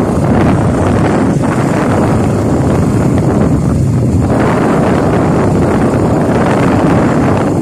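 Wind buffeting the microphone over the steady running noise of a moving road vehicle.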